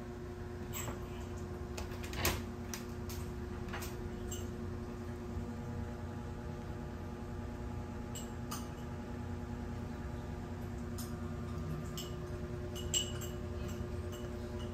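Steady low hum with a few light clicks and taps scattered through it, the sharpest about two seconds in and again near the end.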